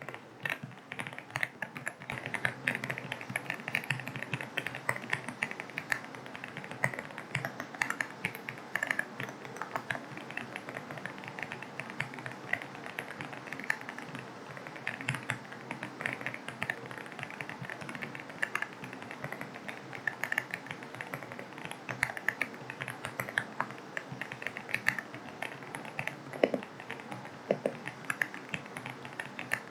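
Continuous fast typing on an AULA F75 mechanical keyboard with linear switches, a rapid irregular stream of key clicks, over a steady hiss of rain.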